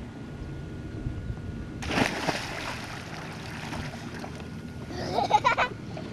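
A child jumping feet-first off a boat's bow into lake water: a loud splash about two seconds in that washes off over a second or so. A voice sounds briefly near the end.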